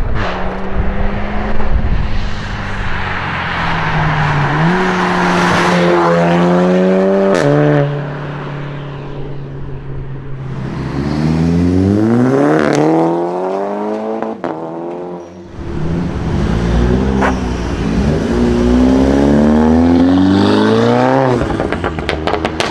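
Loud Volkswagen Golf performance-car engine revving, its pitch climbing and falling several times, with a few sharp cracks in between.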